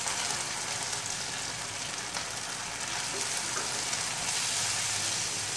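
Onion, capsicum and sauces sizzling in a hot pan as cornflour slurry is poured in and stirred: a steady frying hiss that swells a little about four seconds in.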